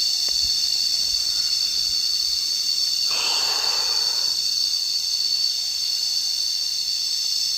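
Cicadas singing in chorus, a loud, steady, high-pitched buzz. A little after three seconds in, a brief rushing noise swells and fades over about a second.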